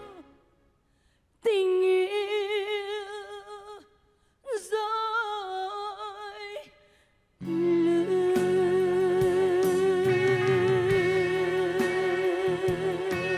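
Female singer holding long vibrato notes unaccompanied, two phrases with short silences between them. About seven seconds in, the band comes back in under a long held note.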